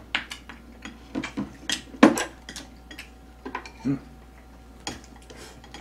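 Spoon and chopsticks clinking and scraping against a ceramic rice bowl and a pan during a meal: a run of short, irregular clinks and taps, the loudest about two seconds in.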